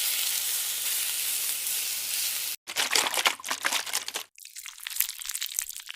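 A steady hiss for about two and a half seconds, then a sudden cut to irregular crinkling and crackling.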